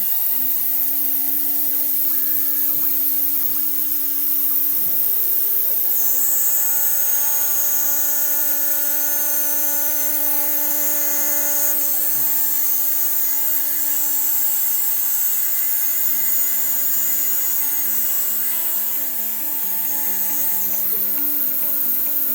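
DIY CNC machine's spindle spinning up and running steadily, with a single-flute cutter milling 6082 aluminium bar: a high-pitched cutting whine comes in about six seconds in.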